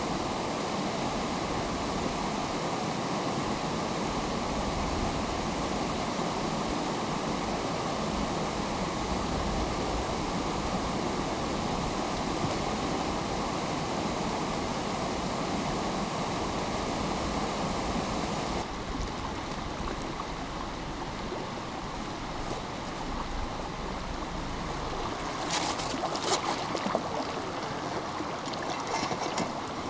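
Stream water rushing steadily. About two-thirds of the way through, the sound changes abruptly to a slightly quieter, duller rush, and near the end a few sharp clicks or taps sound over it.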